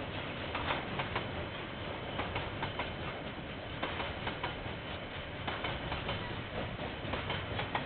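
Container freight train wagons rolling past: a steady rumble of steel wheels on rail with irregular clicks and knocks throughout.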